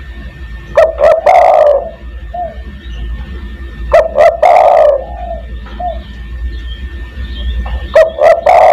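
Spotted dove (tekukur) cooing: three phrases about three and a half seconds apart, each two short notes running into a longer coo, with a faint short note after the first two. A low steady hum lies underneath.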